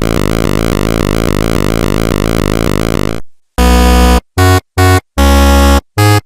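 Loud synthesized buzzing electronic tone, steady for about three seconds, then cut off and chopped into five short, abrupt bursts with silent gaps between them.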